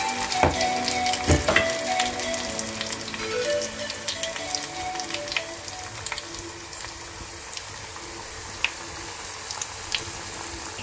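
Battered shrimp deep-frying in hot sunflower oil: a dense sizzle and crackle with scattered sharp pops, easing a little toward the end.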